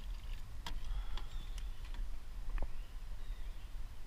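A few scattered sharp ticks and knocks as a bass is netted beside a kayak and the landing net is lifted aboard, over a steady low rumble.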